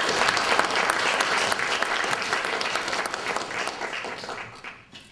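Audience applauding, many hands clapping, fading out near the end.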